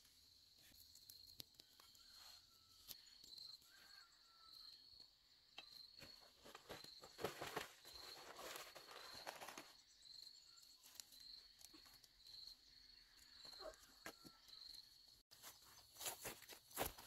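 A faint, steady high-pitched insect call with an even pulse, over soft rustling and crackling of leafy plants and grass being handled and walked through, busiest in the middle and again near the end.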